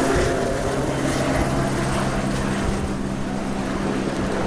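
Helicopter in flight, its rotor and engine running with a steady drone, growing slightly fainter toward the end.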